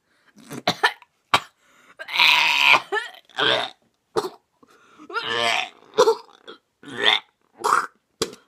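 A boy gagging and retching over and over, with coughing: about ten heaves, some short and some drawn out. It is his reaction to the taste of a green olive in his mouth.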